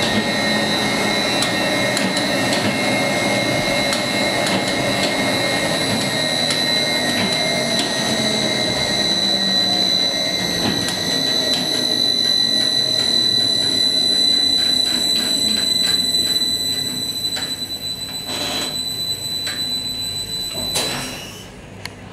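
Funicular winding machinery running: electric motor, David Brown Radicon gearbox and sheave wheel, with a steady high whine. In the last several seconds it winds down and slows, and stops with a clunk near the end.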